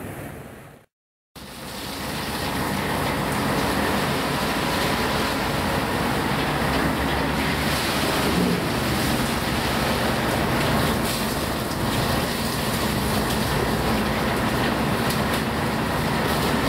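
Storm wind blasting across the microphone on a ship's open deck, a steady loud rushing noise with rain and sea spray mixed in. The sound cuts out completely for a moment about a second in, then comes straight back.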